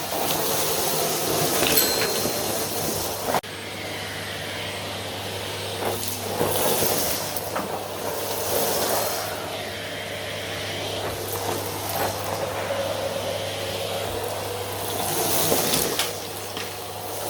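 Vacuum cleaner running with a steady motor hum, its rushing air swelling and easing every few seconds. The sound breaks off abruptly and resumes about three seconds in.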